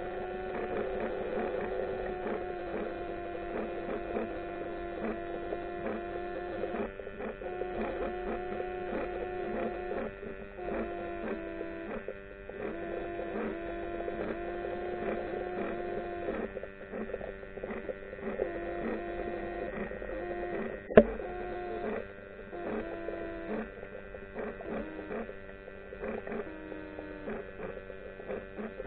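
Underwater hum made of several steady tones that waver and step in pitch and break off now and then, with one sharp click about twenty-one seconds in.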